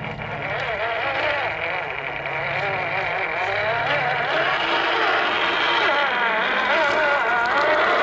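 Brushed electric motor and gearbox of a Tamiya High-Lift F-350 scale rock crawler whining as it crawls over rocks, the pitch wavering up and down as the throttle is worked. It grows louder as the truck comes up to and past the microphone.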